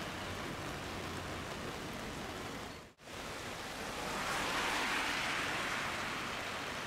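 Steady hissing outdoor noise with no distinct tones. It cuts out for an instant about three seconds in, then swells louder for a couple of seconds and fades again.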